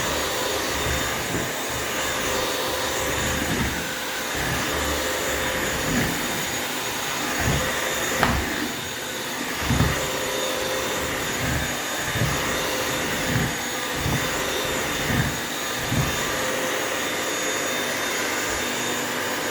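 Bissell vacuum mop running with a steady whining motor. Short dull knocks come every second or two through most of it.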